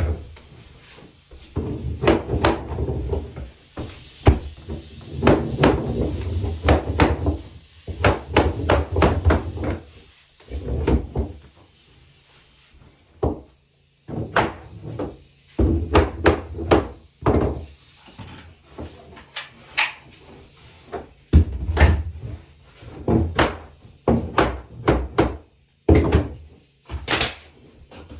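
Irregular wooden knocks and thuds from interior woodwork being handled and fitted, coming in quick runs with a short lull about halfway through.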